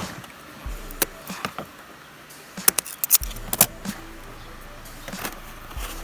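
Sharp clicks and taps of hands working wiring and fittings inside a car cabin, with a quick run of louder clicks about three seconds in.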